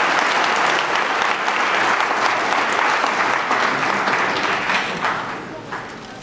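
Audience applauding, the clapping thinning out and fading over the last second or so.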